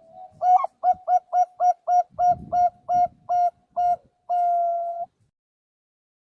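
Zebra dove (perkutut) singing a contest-style coo. A soft opening note leads into a quick run of about eleven short clipped coos, about four a second, and the song ends in one long held note that cuts off suddenly.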